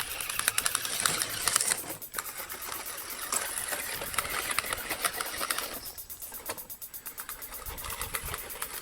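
Small RC truck's electric motors and plastic gears whirring, with a fast, even clatter of gear teeth; it eases off briefly twice.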